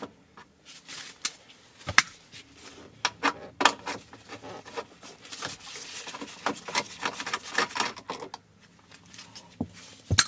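Ratchet wrench clicking in irregular runs as a 10mm bolt is undone, mixed with small metallic clicks and rattles of parts being handled.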